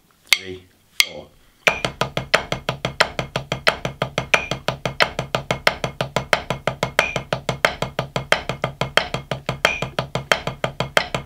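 Drumsticks playing a single stroke roll on a practice pad, even alternating 16th-note strokes at 90 BPM, about six a second. The roll starts about a second and a half in, after a few separate clicks.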